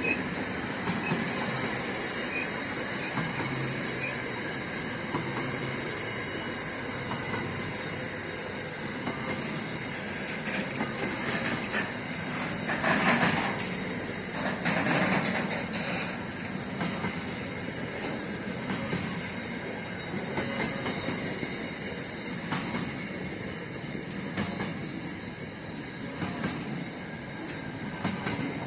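Container freight train rolling past at close range: the steady rumble and clatter of wagon wheels on the rails, with two louder bursts about halfway through.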